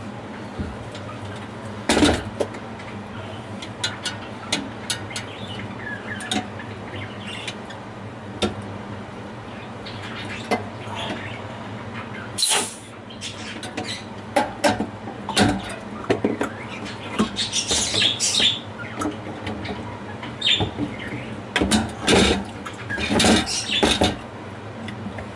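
Irregular clicks, knocks and scraping, as of parts or tools being handled, over a steady low hum. The handling is busiest in the second half, with clusters of rattling and scraping.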